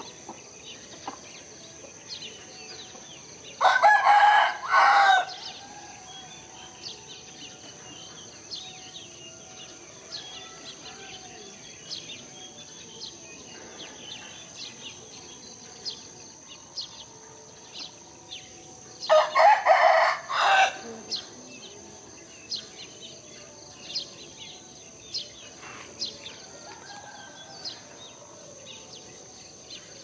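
A rooster crowing twice, each crow about a second and a half long: the first a few seconds in, the second about two-thirds of the way through.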